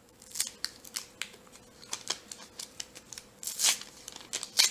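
Foil wrapper of a 1990-91 Upper Deck hockey card pack crinkling in the hands with a string of sharp crackles, then ripping as it is torn open, the loudest rips near the end.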